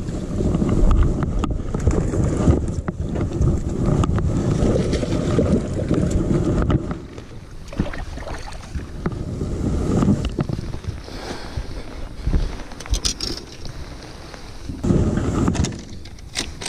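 Wind buffeting the microphone on a bass boat, loud for the first seven seconds and then dropping away, followed by scattered knocks and clicks as a landed bass is handled on the deck.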